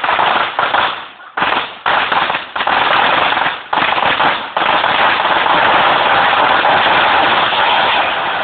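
A long roll of Black Cat firecrackers going off in a loud, rapid string of bangs. It stutters with short gaps in the first few seconds, then merges into a nearly continuous crackle.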